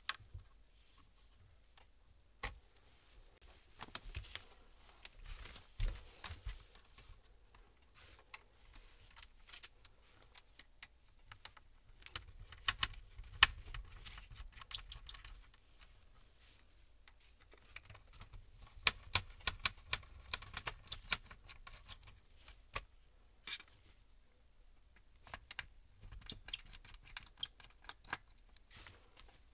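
Hands working on the opened laptop's internals: irregular small clicks and light rattles of plastic and metal parts being handled, coming in several clusters with quieter gaps between.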